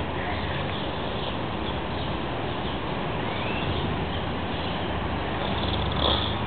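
Steady outdoor background noise with a low rumble, and a short rising bird chirp about three seconds in. A brief louder sound comes near the end.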